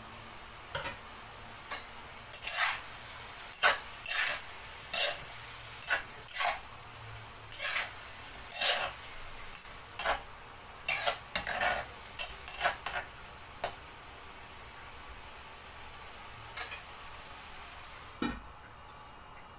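Spatula stirring and scraping a bell pepper, black fungus and sliced pork stir-fry in a wok: a run of irregular sharp scrapes and clacks over a steady sizzle, stopping after about fourteen seconds. Near the end the wok's stainless lid is set back on with a single clunk.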